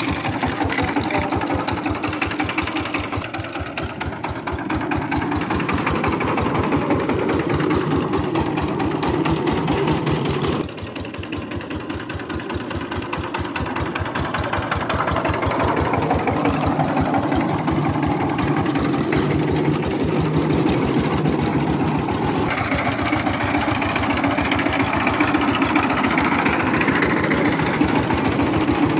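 Single-cylinder diesel engine of a two-wheel power tiller running with a steady, rapid firing rhythm. The sound changes abruptly twice, about a third of the way in and again about three quarters of the way through.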